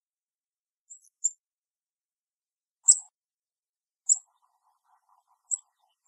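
Black-capped chickadee giving short, high-pitched chirps: five single chip notes spaced a second or so apart, the loudest about three seconds in.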